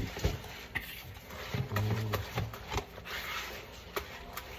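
Several sharp knocks and clinks of a utensil against a mixing bowl while oats are added and stirred into the batter, with a brief low murmured voice about two seconds in.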